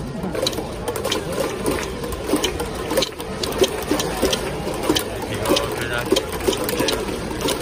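Baseball stadium crowd clapping in rhythm, about two to three claps a second, along with a batter's cheer song. The song echoes through the dome.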